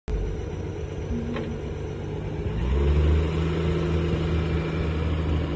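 1967 Ford F250's inline-six engine running as the truck pulls away, getting louder about three seconds in.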